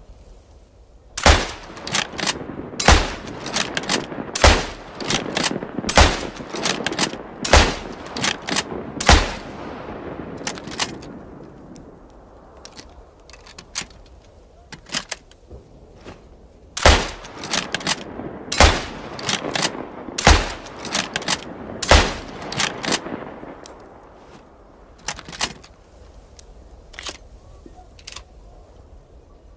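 Carcano M1891 bolt-action rifle firing: six shots about a second and a half apart, each with a lingering echo and lighter clicks of the bolt between. After a pause come four more shots at the same pace, then a few light clicks near the end.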